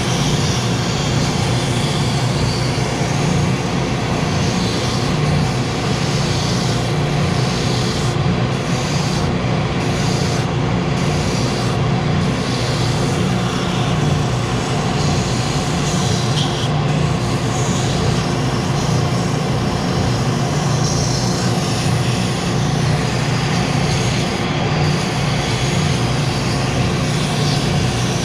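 Benchtop spindle sander running steadily with a vacuum hooked up for dust collection, as plywood is sanded against the spinning drum.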